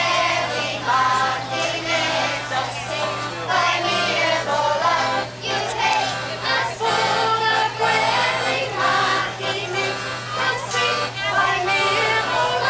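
Children's choir singing a folk song in unison, accompanied by a piano accordion.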